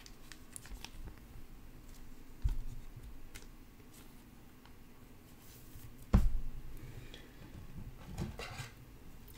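Handling noises from trading cards and packs on a table: light clicks, a soft thump about two and a half seconds in, a sharper knock about six seconds in, and a brief rustle near the end.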